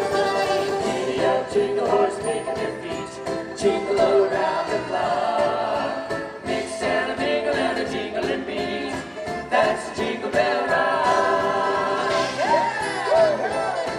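Christmas music from a live stage show: a group of singers in chorus over the band, with bells.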